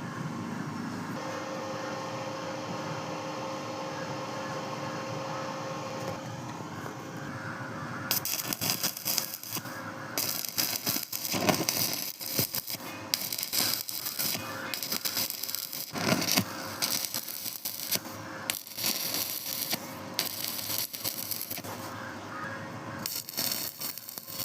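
Electric arc welding: a steady hum with faint held tones at first, then from about a third of the way in an irregular, uneven crackling and sputtering of the arc.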